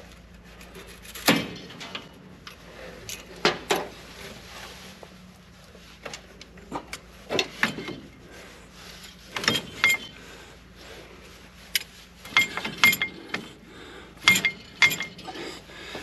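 Scattered metallic clicks and clinks from the knotter parts of a Massey Ferguson 2100/2200-series baler being moved and lifted by hand; a few near the end ring briefly.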